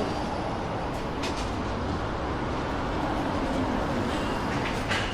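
Steady rumble of passing traffic in a city street, with a couple of short clicks, one about a second in and one near the end.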